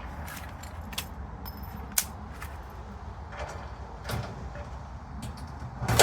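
Sharp metallic clicks and knocks from handling the steel raised-bed panels and riveting, a handful of separate strikes with the loudest knock at the very end, over a low steady rumble.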